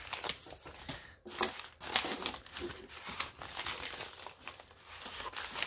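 Newspaper wrapping crinkling and rustling in uneven handfuls as it is pulled off a rock specimen.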